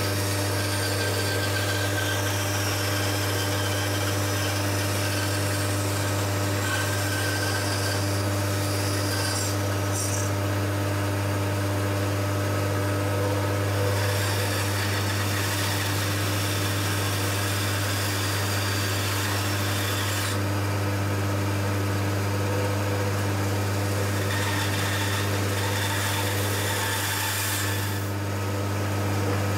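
Homemade plywood band saw running with a steady motor hum while its blade cuts small pieces of wood. The cutting hiss changes a few times as the work is fed through.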